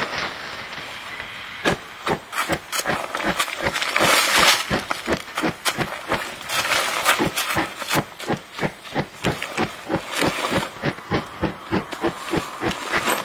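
Heavy tent fabric rustling and swishing as it is unfolded and dragged across a plastic tarp, in a quick run of short strokes that come faster in the second half.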